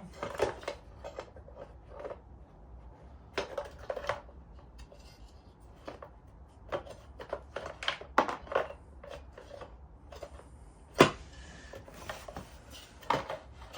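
Parts of a diesel heater kit being handled and fitted by hand: irregular clicks, taps and light clatters, with one sharper knock about 11 seconds in.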